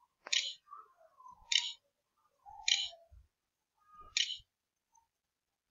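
Computer mouse button clicking four times, about once a second, as keys are picked one by one on an on-screen keyboard to type a password.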